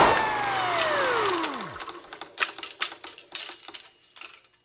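Sound effects: a tone that slides steadily down in pitch and dies away over about two seconds, then a scatter of sharp clicks and rattles, the loudest three about half a second apart.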